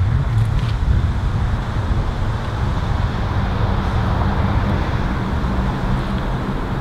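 An engine running steadily nearby: a low, even hum with a constant noise over it.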